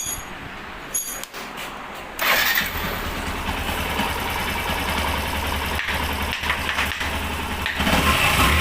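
A few clicks, then a Yamaha FZ-S V2 Fi's 149 cc single-cylinder engine is started. It catches about two seconds in and idles steadily, then gets louder near the end. This is plausibly the engine running after its timing chain was replaced.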